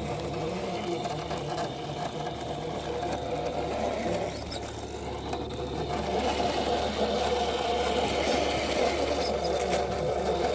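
Radio-controlled rock crawler's electric motor and geared drivetrain whining as it drives, getting louder about six seconds in.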